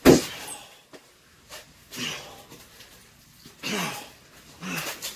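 A loud, sudden smack right at the start, then a few short grunts and cries, falling in pitch, from people play-wrestling.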